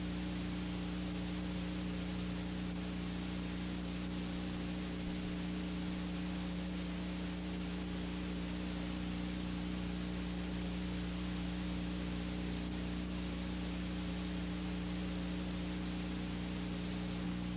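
Steady electrical hum of several low tones over an even hiss, with nothing else: the noise floor of an old black-and-white film transfer that has no sound of its own here.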